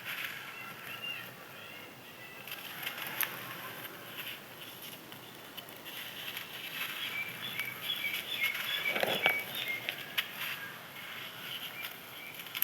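Crispy dried sand pieces crumbling and being crushed: a run of small crackles and crunches that grows busiest partway through. Birds chirp in the background.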